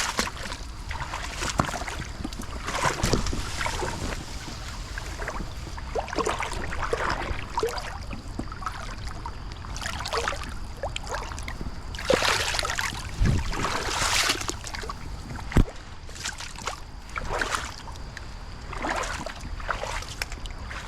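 Legs wading through a shallow creek: irregular swishes and sloshes of water every second or two, over a steady low rumble.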